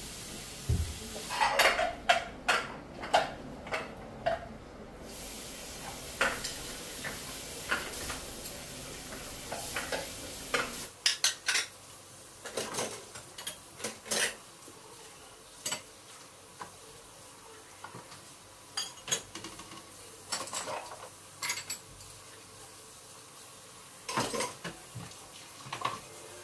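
Plates and cutlery clinking and knocking against each other at irregular intervals as dishes are washed by hand, over a steady hiss that stops about eleven seconds in.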